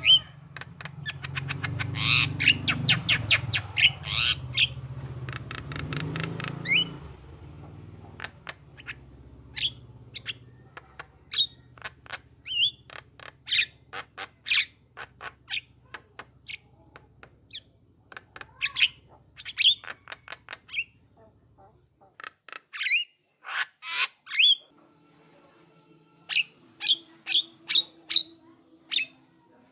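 Javan myna (jalak kebo) calling. A dense burst of rapid chattering notes runs for about the first seven seconds over a low hum. Then come scattered sharp whistles and squawks with pauses, and near the end a quick run of about six notes.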